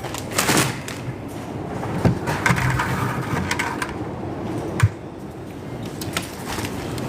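Wind buffeting the microphone in a low rumble, with scattered knocks and scrapes of things being moved by hand; a sharp knock a little under five seconds in is the loudest.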